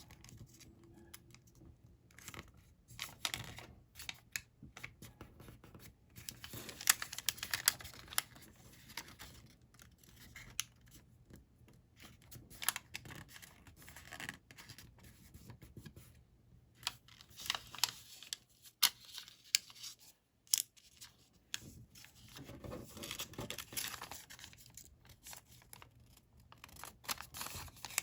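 Sheet of coloured origami paper being handled, folded and creased by hand: irregular rustling and crinkling with sharp little clicks and scrapes as creases are pressed down.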